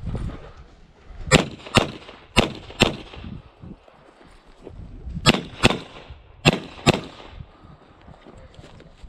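Pistol fired in quick pairs, eight shots in all: two pairs about a second and a half in, then a pause of about two seconds, then two more pairs between five and seven seconds in.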